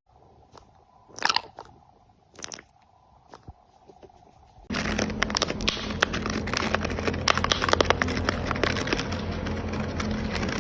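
Crunching and chewing, most likely a parrot biting into something. It starts with a few faint, scattered crunches, then from about five seconds in a dense, steady run of crackling crunches.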